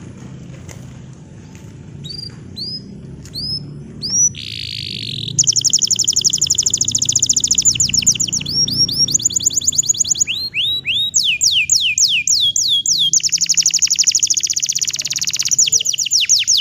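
Green (bottle-green) domestic canary singing: a few separate sweeping chirps, then from about five seconds in a long rapid trill of repeated notes that changes pace and pitch through several rolls.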